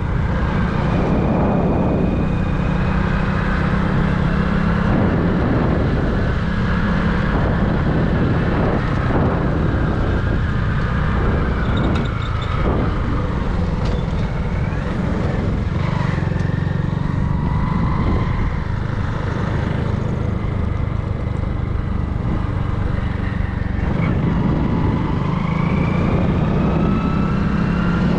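A vehicle engine running steadily, a constant low hum under a noisy rush, with a few faint whines that slowly rise and fall in pitch.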